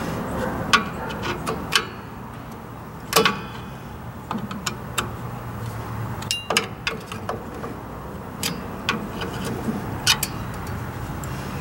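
Scattered metallic clicks and clinks of rear drum brake hardware and hand tools being handled while springs and shoes are fitted. One clink about three seconds in rings briefly. A steady low hum runs underneath.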